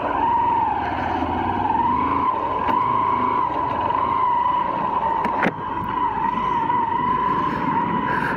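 Motorcycle riding along a rough dirt road, heard from a camera on the bike: engine and road rumble under a steady high whine that wavers slightly in pitch, with one sharp knock about five and a half seconds in.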